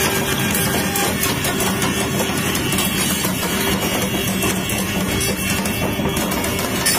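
Background music with drums and guitar.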